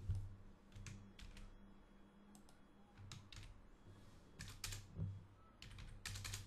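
Faint, irregular keystrokes on a computer keyboard, a few keys at a time with short gaps between.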